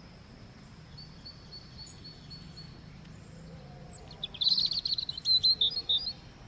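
A bird chirping: a faint run of short, evenly spaced high notes, then a louder burst of rapid chirps about four seconds in, lasting about two seconds.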